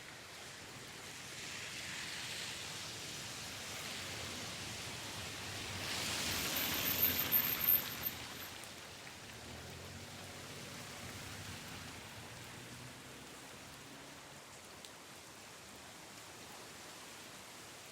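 Rain falling steadily. It grows louder over the first few seconds, is heaviest about seven seconds in, then eases back to an even patter.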